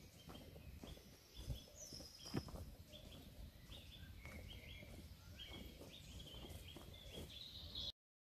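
Small birds singing faintly, a run of short repeated chirps, with a few footsteps on a dirt path, two of them louder, about a second and a half and two and a half seconds in. The sound cuts off suddenly to silence just before the end.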